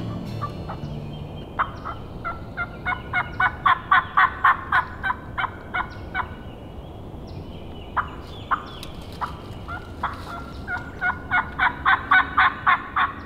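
Hen turkey yelping done by a hunter on a mouth call: two long runs of evenly spaced yelps, about three a second, each run building in loudness and then trailing off, the second starting about eight seconds in. It is a hunter's locator call meant to sound like an eager hen and draw a gobbler in.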